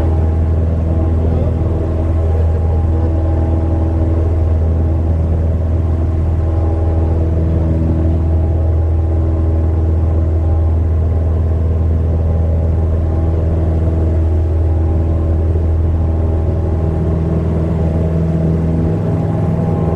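Cessna 172M Skyhawk's Lycoming O-320 four-cylinder engine and McCauley fixed-pitch propeller running steadily in flight, a loud, even low drone heard from inside the cabin.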